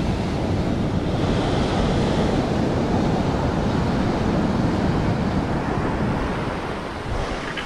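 Ocean surf breaking and washing up a sandy beach, with wind buffeting the microphone. The wash swells early on and eases off near the end.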